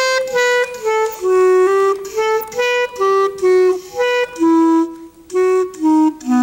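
A clarinet playing a solo melody of short, separate notes, about two to three a second, in its middle range.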